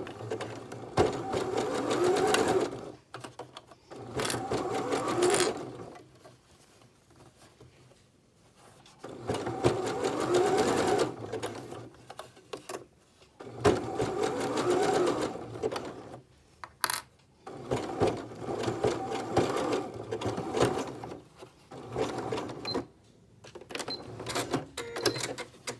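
Janome electric sewing machine stitching in several short runs of about two seconds each, with pauses between as the fabric is repositioned, sewing a zigzag seam to attach a strap binding.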